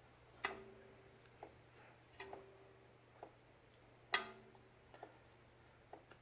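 Faint metal clinks and ticks while a brake hose fitting is threaded on by hand. Three of the clinks are louder and ring briefly, about two seconds apart, with lighter ticks between them. A low hum runs underneath.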